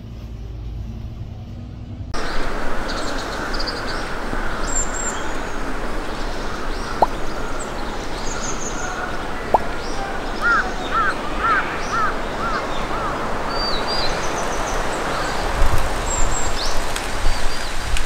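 A bus engine humming for the first two seconds, then a mountain stream rushing steadily, with small birds chirping and a bird giving a quick run of about six harsh caws around ten seconds in. A few low thumps near the end.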